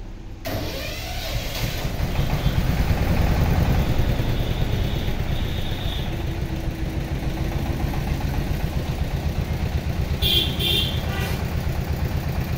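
An engine running steadily and loudly, with an even low pulsing, starting about half a second in; a few brief higher-pitched sounds come around ten seconds in.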